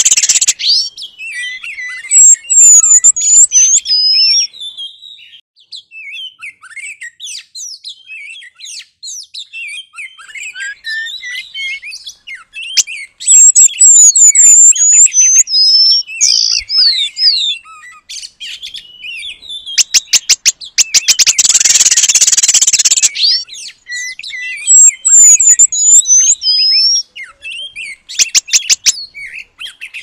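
Oriental magpie-robin and whydah song: rapid high chirps, whistles and twitters, with a phrase of quick descending chirps repeated three times. Harsh rattling chatter comes about two-thirds of the way through and again near the end.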